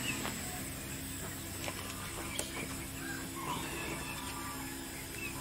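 Faint small clicks of a metal motor bracket being handled against a plastic egg-turner rack, over a low steady hum, with birds calling faintly in the background.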